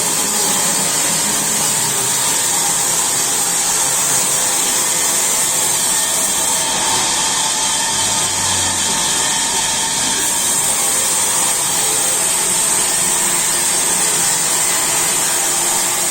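Sawmill saw running steadily through wood, a constant loud mechanical noise with a strong high hiss.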